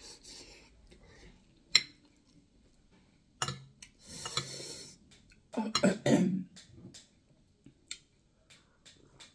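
Eating close to the microphone: cutlery clicking against a plate a few times, with a short hiss and a burst of chewing and mouth sounds midway.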